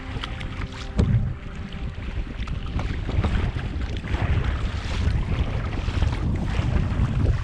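Wind buffeting the microphone over the sound of water around a kayak, with a single sharp knock about a second in.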